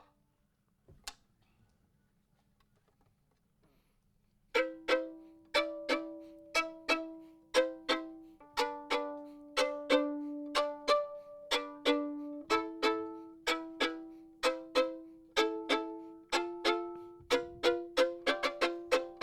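A plucked string instrument picking a slow melody of single notes, about two a second, each note sharp at the start and fading away. The notes begin about four and a half seconds in, after near silence broken by one soft click.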